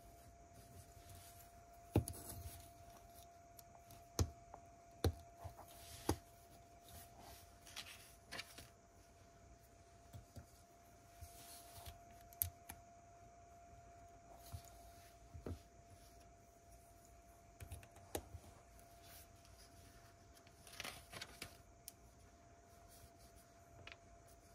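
Lego bricks being handled and pressed together: about ten irregular sharp plastic clicks with brief soft rustling, over a faint steady hum.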